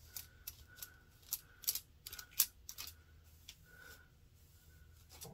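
Light, irregular clicks and taps, a few a second, from hands with long acrylic nails handling a wig's hair as it is sectioned.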